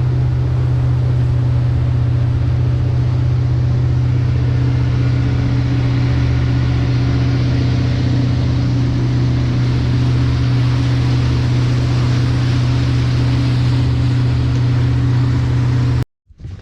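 Sea Ray ski boat's engine running steadily at cruising speed, a constant low hum mixed with rushing wind and water noise. It cuts off abruptly near the end.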